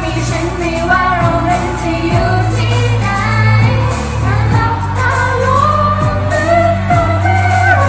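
Thai pop song: a voice singing a held, wavering melody over a band backing with a steady bass and a regular beat.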